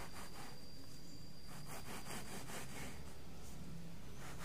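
A hacksaw blade sawing into a rockwool block: a dry rasping scratch in runs of quick back-and-forth strokes. The blade is scoring grooves partway into the slab to divide it into seed-starting cubes.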